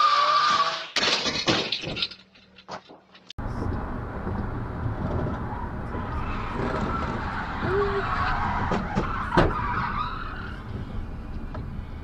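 A BMW's tyres squealing as it skids sideways, cutting off about a second in, followed by a few sharp knocks. Then the steady road and engine noise of a car driving on a highway, heard from inside the cabin.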